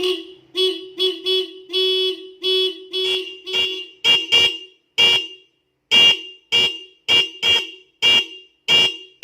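A motorcycle's stock horn and an added higher-pitched horn sounding together as one dual-tone 'stereo' horn, bass and treble at once, likened to a Toyota Avanza's horn. It is honked repeatedly: about eight beeps in the first three and a half seconds, then a run of shorter, quicker taps.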